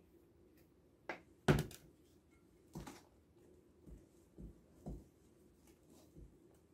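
A glass bowl and a wooden spoon knocking against a mixing bowl as flour is tipped in and stirred into the wet ingredients. There are a few sharp knocks in the first three seconds, the loudest about a second and a half in, then softer, irregular thumps.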